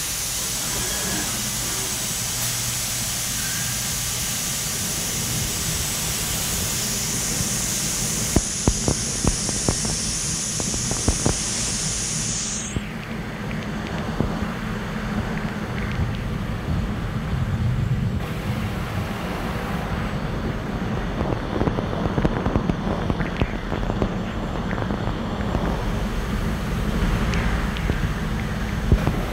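CNC machining centre drilling Hastelloy with a half-inch Kennametal GoDrill at 611 RPM under flood coolant: a steady coolant spray hiss and machine running noise. For the first dozen seconds a strong high hiss rides on top, with a few sharp clicks, then cuts off suddenly, leaving a lower steady run with scattered clicks. The cut itself is barely heard, a sign of correct speed and chip load in this nickel alloy.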